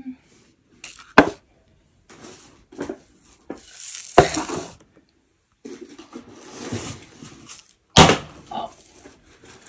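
Short, choppy snippets of objects being handled: a couple of sharp knocks or thunks, one about a second in and a louder one near the end, with stretches of rustling noise between them.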